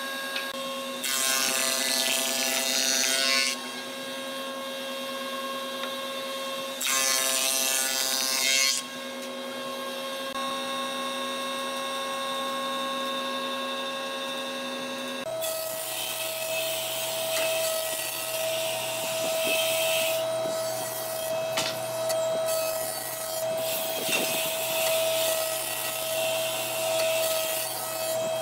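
An edge belt sander runs steadily, and a hardwood board is pressed against its belt twice, each pass a few seconds of loud sanding. Partway through, the sound cuts to a Taiyo jointer running with a steady hum while its cutter head planes the edge of a hardwood board fed across it in two long passes.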